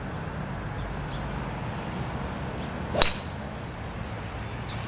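Golf driver striking a ball off the tee: one sharp crack about three seconds in, over a steady low background rumble.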